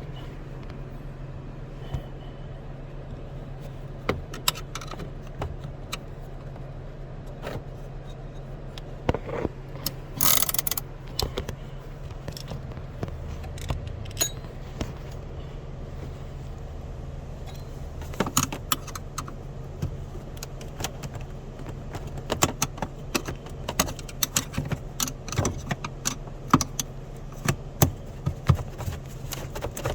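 Metal clicks, clinks and rattles of hand work on a dash-mounted pull-handle emergency brake and its cable, scattered through with a louder cluster about ten seconds in and frequent sharp clicks in the second half, over a steady low hum.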